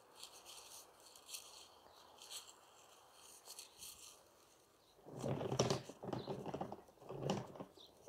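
Handling noise: faint rustling, then from about five seconds in several loud rubbing and scraping sounds in uneven pulses.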